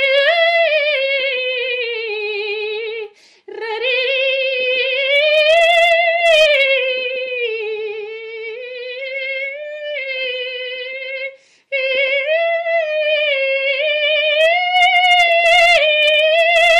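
A woman's voice singing long, held notes with vibrato and no accompaniment, the pitch gliding slowly up and down. There are two short breaks for breath, about three seconds in and again near the end.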